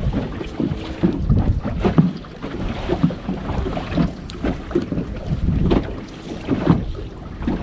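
Wind buffeting the microphone on a small boat, with water knocking and slapping irregularly against the hull.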